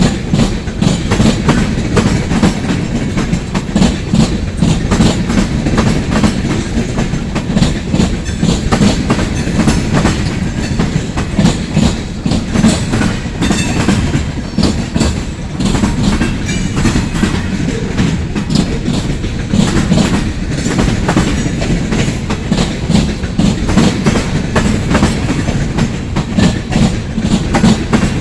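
Freight cars of a long train rolling past, steel wheels clicking and clattering over the rail joints in a continuous rumble.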